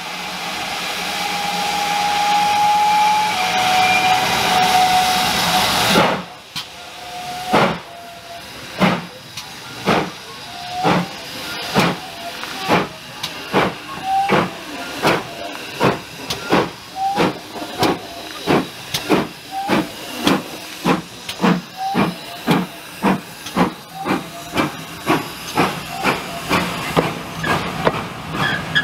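GWR steam locomotive pulling away with its train: a loud steam hiss, with a thin steady tone over it for a few seconds, cuts off suddenly about six seconds in. Sharp exhaust beats follow, quickening from about one every second and a half to about two a second as the engine gets under way.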